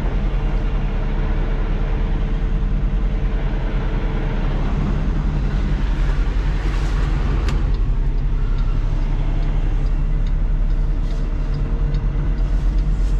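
Semi-truck's diesel engine running at low speed, heard from inside the cab as a steady low drone, with a single sharp click about midway.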